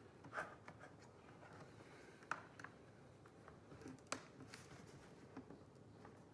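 Faint scattered ticks and scrapes of a pry tool working at the adhesive tape under a laptop LCD panel, the sharpest tick about four seconds in.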